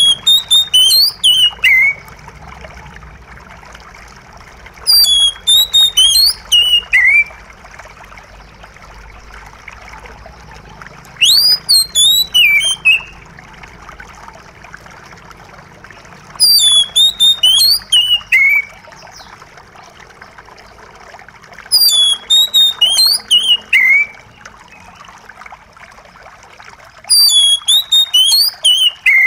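Oriental magpie-robin singing: six short phrases of clear whistled notes, mostly stepping down in pitch, one about every five and a half seconds. Between the phrases a steady trickle of running water goes on.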